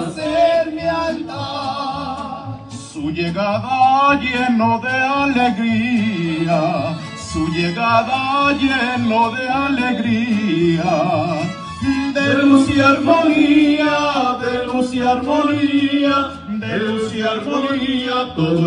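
Mariachi band playing: violins carry the melody with a wide vibrato over strummed guitars, with men singing.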